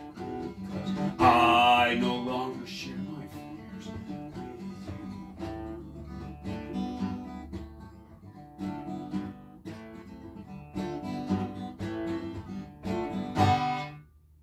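Acoustic guitar strummed and picked as a song closes, with a held sung note about a second in. It ends on a last strum just before the end.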